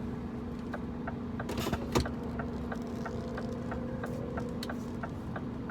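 Scania truck's diesel engine idling, heard from inside the cab. About two seconds in there is a short hiss ending in a knock, then a light, even ticking at about three a second.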